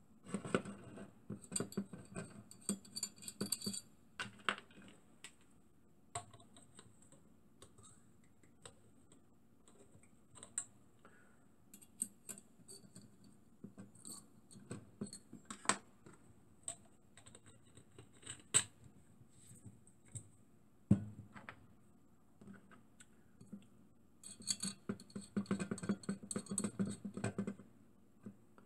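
Light clicks, ticks and scraping of small metal parts being handled: the filler fitting on a model steam engine's copper boiler is unscrewed at the start. A few scattered taps follow, then a second cluster of clicks near the end as the fitting is screwed back in.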